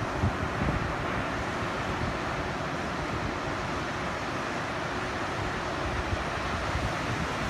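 Steady wash of surf with wind buffeting the microphone.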